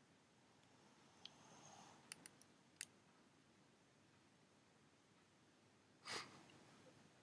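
Near silence with a few faint clicks, then a pug's single short breathy snort about six seconds in.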